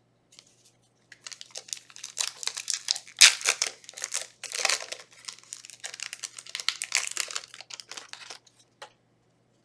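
Foil booster-pack wrapper being crinkled and torn open, a dense crackle that starts about a second in and stops near the end.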